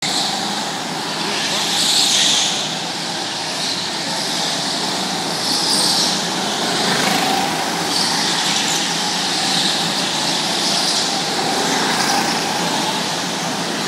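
Small go-kart engines running hard around an indoor track. The whine swells and fades every two or three seconds as karts pass.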